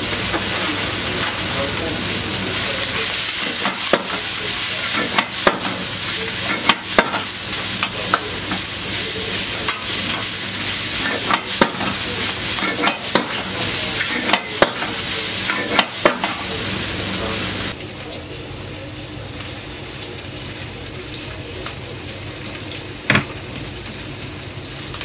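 Cabbage and bean sprouts sizzling in a hot wok over a gas flame while a metal ladle tosses them, striking the wok with a series of sharp clanks. About 17 seconds in the sizzle drops to a quieter level, and one more clank comes near the end.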